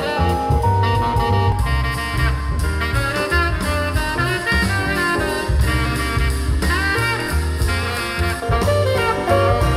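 Jazz with a saxophone lead, bass and drums, played through hi-fi loudspeakers and picked up by a microphone in the room. First comes a pair of Acoustic Energy Aegis Evo 3 floor-standers, then, within the first few seconds, Radiotehnika S-90 three-way speakers.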